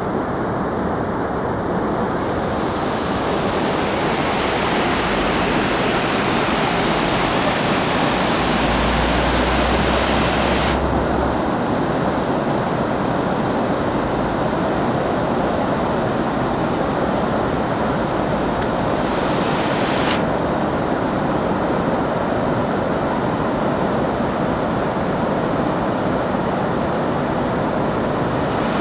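Waterfall's falling water rushing steadily as a dense, even noise. Its hiss brightens about two seconds in, turns duller around eleven seconds, and briefly brightens again around twenty seconds.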